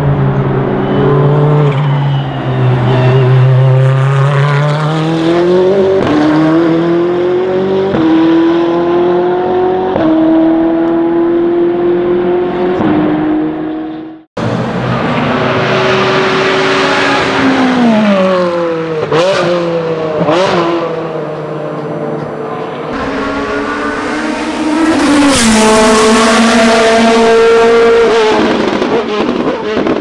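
Ferrari GT race-car V8 engines at full throttle in three clips. First a Ferrari 488 GTE's twin-turbo V8 accelerating, its note climbing and then holding high. After a sudden cut about 14 seconds in comes a Ferrari 360 GTC's V8, its pitch falling sharply several times. Then a Ferrari F430 GTC's V8 steps up in pitch and holds a high flat-out note.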